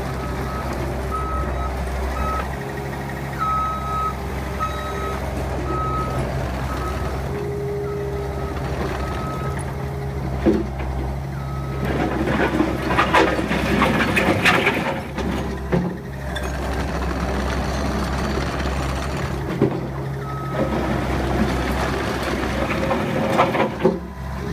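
Takeuchi TL150 tracked skid steer's 97-horsepower diesel engine running under work, with its backup alarm beeping in short repeated tones while the machine reverses. Near the middle comes a louder stretch of clanking and rattling.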